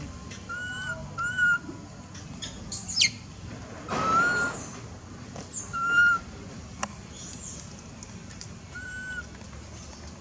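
Baby long-tailed macaque giving short, high-pitched coo calls, five times with irregular gaps. There is a quick falling squeak about three seconds in.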